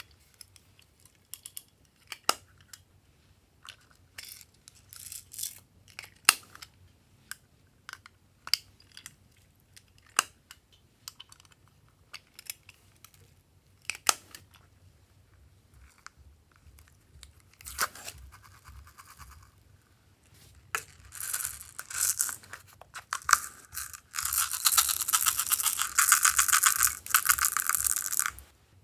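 Small plastic toy cases clicking and snapping open and shut, with beads and little plastic pieces tipped out of them. Near the end, a long, dense rattle of many small plastic beads pouring out of a case.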